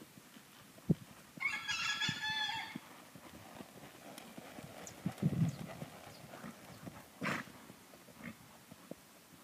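A farm animal's drawn-out call with many overtones, starting about a second and a half in and lasting over a second, set among a few soft knocks and a brief sharp noise later on.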